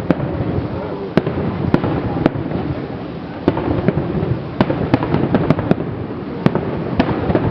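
Aerial fireworks display: about a dozen sharp bangs of shells bursting at irregular intervals, over a continuous rumble of further bursts.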